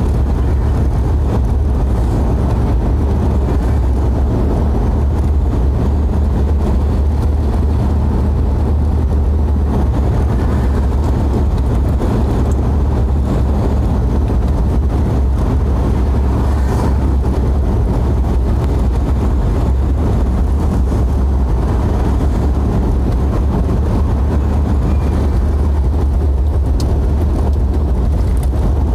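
A vehicle driving, with a steady low rumble of engine and road noise that does not change.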